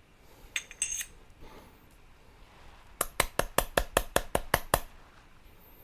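A few sharp metallic clicks, then a quick run of about ten sharp clicks or taps lasting just under two seconds.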